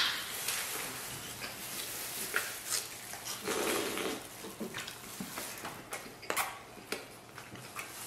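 Eating sounds from a roast lamb meal: chewing and mouth noises, with scattered small clicks and crackles of gloved hands pulling at the meat.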